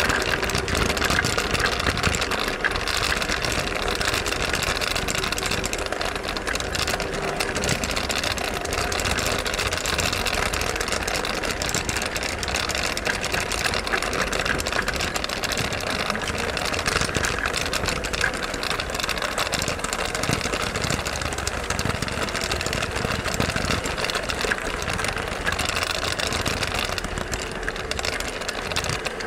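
Gauge 1 garden-railway wagon rolling along the track, heard from a camera riding on the train: a steady rumble with a dense, fast rattle of wheels and rail joints.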